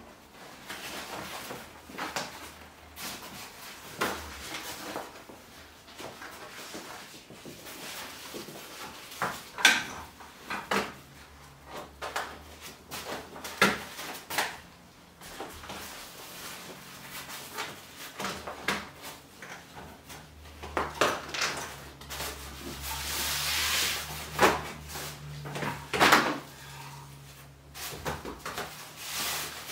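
A fabric wagon canopy being handled and fitted onto its metal frame poles: rustling cloth with scattered sharp clicks and knocks of the frame, and a longer rustle near the end.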